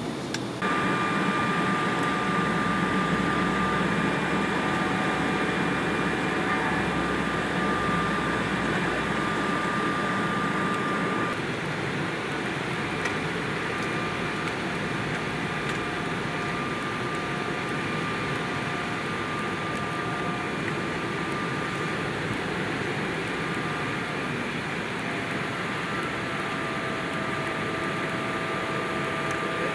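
Cabin noise of an Embraer E190's GE CF34 turbofans, heard from a passenger seat as the jet rolls on the ground at its destination airport: a steady engine whine over a rumble. The rumble jumps up sharply about half a second in, stays loud, and eases back around eleven seconds in to a steadier, quieter engine hum.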